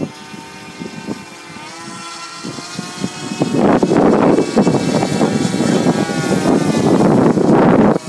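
Single-cylinder two-stroke gas engine (DLE 20cc) of a large radio-controlled model plane flying overhead, a steady distant drone. From about halfway through, a loud rough rushing noise swells in over it and stops abruptly.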